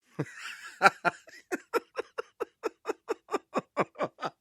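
A man laughing long and uncontrollably: a breathy start with a loud outburst under a second in, then a rapid, even run of laughs, about four a second, each falling in pitch.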